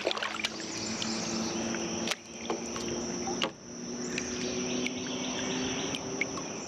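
Steady high-pitched drone of insects, with a low steady hum underneath that breaks off briefly twice, and a few sharp clicks.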